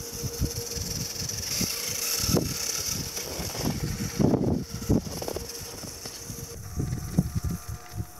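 1/10-scale RC4WD FJ40 crawler's electric motor and gears whining steadily as it drives over hard-packed snow, the pitch shifting slightly higher about seven seconds in. Irregular knocks and crunches come from the tyres and chassis bouncing over the bumps.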